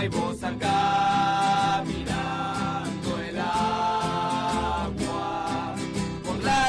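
Acoustic live song: acoustic guitar played under a sung vocal line of long held notes.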